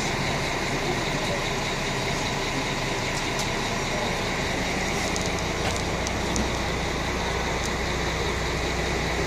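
An O-Train Alstom Coradia LINT diesel railcar standing at a platform with its engine running: a steady, even rumble and hum, with a few light clicks.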